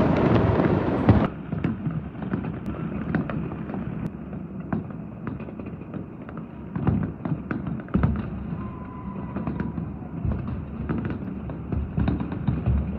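Fireworks going off: a loud, dense stretch of display bursts cuts off abruptly about a second in, giving way to many distant fireworks and firecrackers popping and banging at irregular intervals across the city.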